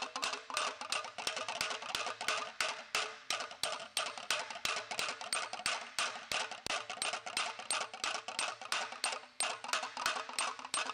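Hammer-and-dolly work on a TIG-welded butt seam in 0.060 aluminium sheet: a steady run of quick, light metallic taps, about three a second, knocking the weld bead down into the panel.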